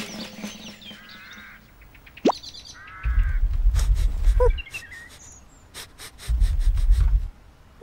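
Cartoon sound effects: short warbling chirps, a fast rising whistle about two seconds in, then two low rumbles, the first about a second and a half long and the second about a second, with sharp clicks scattered between them.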